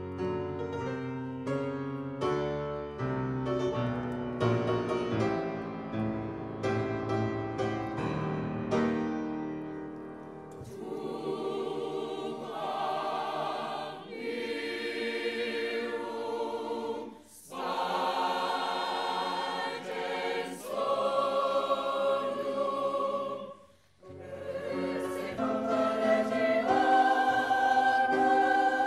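Piano playing a quick run of struck notes. About ten seconds in, a mixed choir comes in, singing loud held chords in phrases, with two short breaks.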